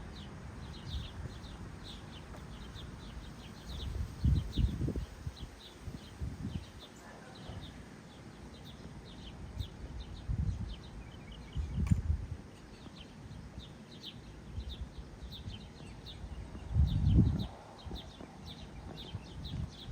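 Small backyard birds chirping in short, repeated high notes, with low rumbles swelling up a few times.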